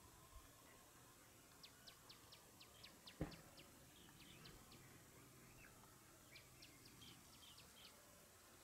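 A small bird calling against near silence: several runs of short, sharp chirps, about four a second, with one sharp click a little over three seconds in as the loudest sound.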